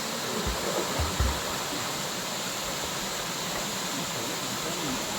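Waterfall pouring from a height, a steady rushing of water, with a few brief low bumps about a second in.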